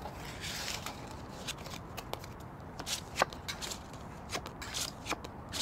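Playing cards being handled and dealt onto a wooden tabletop: irregular short clicks, snaps and brief slides of card against card and table.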